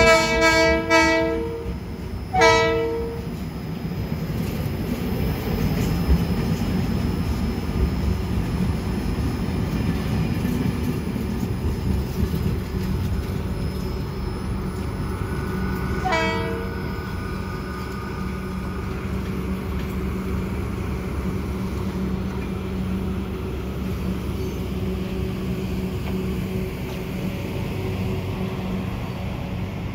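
Diesel locomotive horn: a few short blasts in the first three seconds and one brief blast about halfway through. The horn sounds over the steady rumble of a departing passenger train, its coaches rolling away down the track.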